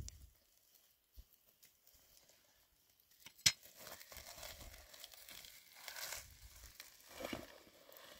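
Dry crinkling and rustling of something being handled, with a sharp click about three and a half seconds in.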